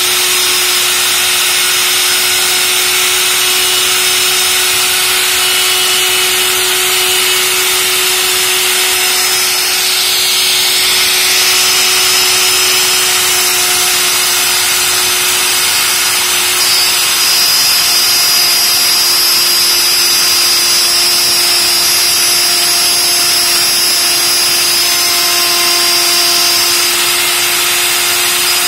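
DCA electric handheld router running steadily at speed while its bit cuts into a wooden board: a loud, even motor whine over the hiss of wood being cut.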